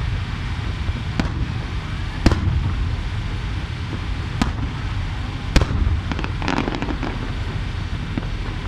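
Aerial firework shells bursting: four sharp booms a second or two apart, then a spell of rapid crackling a little past the middle, over a steady low rumble.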